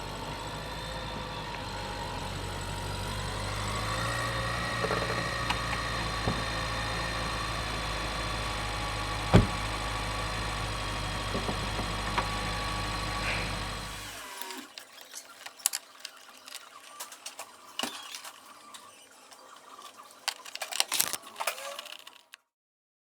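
BMW 1 Series petrol engine idling steadily, with one sharp click about nine seconds in. The engine cuts off about two-thirds of the way through, leaving scattered faint clicks and knocks.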